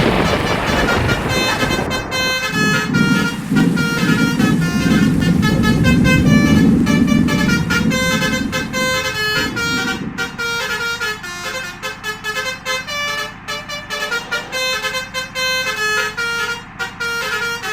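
Basuri multi-tone 'telolet' horn playing a fast melody of short notes, over the low rumble of a vehicle engine that drops away about ten seconds in.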